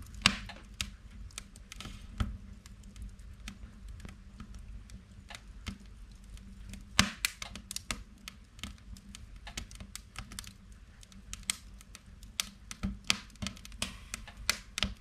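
Wood fire crackling in a log-burning stove: irregular sharp snaps and pops, the loudest just after the start and about seven seconds in.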